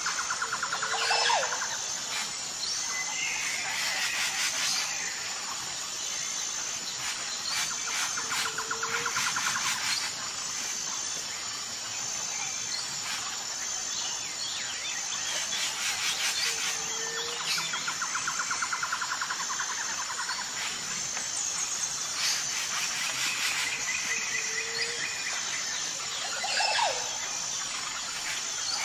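Birds chirping and trilling, with a steady high ticking behind them; the same set of calls comes round about every eight seconds, as in a looped nature-ambience track.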